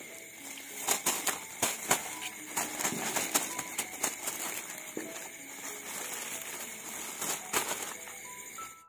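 Wet mesh fishing net being handled by hand close to the microphone: irregular rustling with many sharp clicks, the loudest about one to three seconds in.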